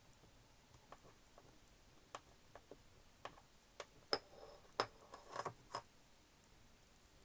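Light, irregular clicks and taps of a tiny photo-etched brass part and a flat steel bending blade being handled on a hard work surface, with a short scraping just after five seconds in. The loudest two clicks come about four and five seconds in.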